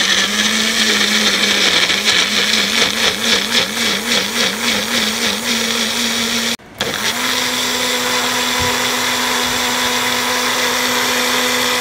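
Magic Bullet personal blender grinding tomatoes, green chili and garlic into a sauce. The motor's pitch wavers for the first few seconds while the chunks are chopped. It cuts out briefly just under seven seconds in, then runs again at a steady, slightly higher pitch as the mix turns smooth.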